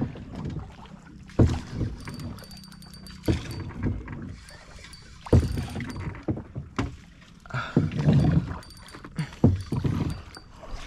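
A small boat being paddled through the water, with a sharp splash or knock of the paddle every one and a half to two seconds.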